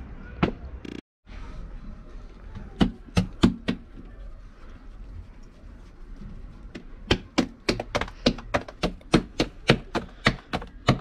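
Tandoori naan dough being slapped from hand to hand to stretch it flat: a few scattered slaps, then about halfway through a quick even run of about four slaps a second.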